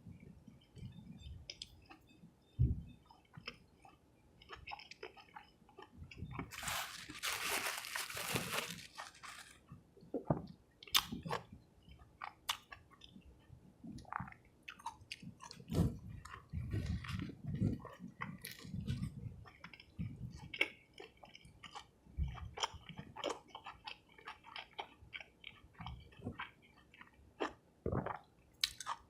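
Close-miked chewing and biting of a cheese fish sub and fries, with crunchy bites and wet mouth clicks. A louder noisy stretch of about two seconds comes some seven seconds in.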